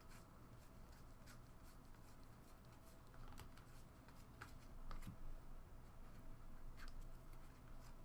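Trading cards being handled and flipped over a faint room hum, a few soft clicks and rustles scattered through an otherwise near-silent stretch.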